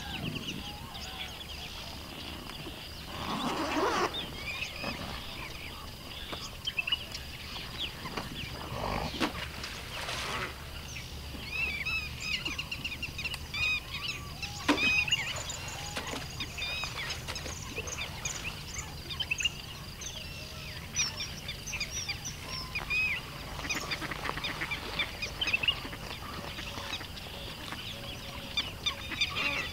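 Birds calling in a rural setting: many short, high chirps overlap throughout, with a louder, lower call a few seconds in. A few short knocks come through near the middle.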